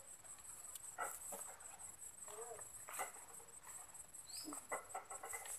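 Faint outdoor background: insects droning steadily at a high pitch, with a few short faint knocks and chirps.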